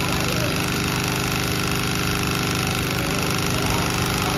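Automatic industrial hat sewing machine running steadily, its needle stitching a cap brim in a fast, even rhythm.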